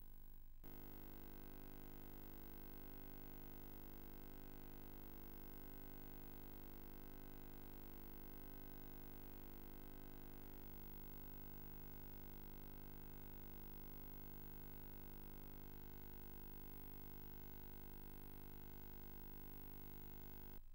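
Near silence apart from a faint steady electrical hum, which shifts slightly in tone a few times.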